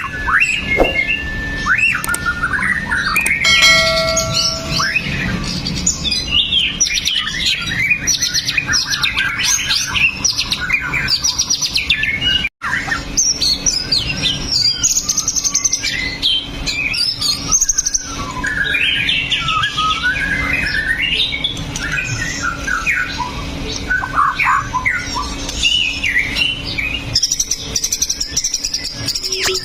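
White-rumped shama (murai batu) singing continuously in fast, varied phrases of whistles and chattering notes. This is a trigger song played to stir caged shamas into singing. The song breaks off for a moment near the middle.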